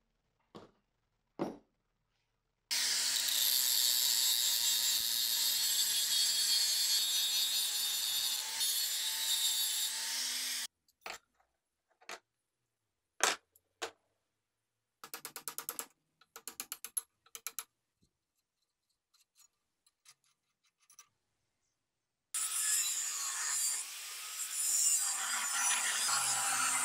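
A wire brush scours a metal bicycle sprocket with a steady, even hiss for about eight seconds. Metal clicks and rattles follow as a bicycle freewheel is taken apart by hand, including a quick run of clicking. Near the end an angle grinder starts cutting into a steel bicycle crank arm held in a vise.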